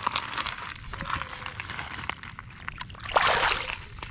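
Water sloshing as a largemouth bass is lowered by hand into shallow water and released, with a louder splash about three seconds in as the fish kicks free.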